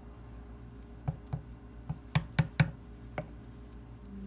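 Wooden spoon working thick split pea soup in a stainless steel pot, knocking lightly against the pot about seven times, with the sharpest knocks a little past two seconds in.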